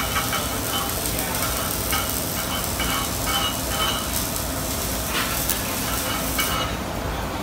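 TIG welding arc hissing and sizzling steadily as overlapping beads are laid, cutting off about a second before the end, leaving a low shop rumble.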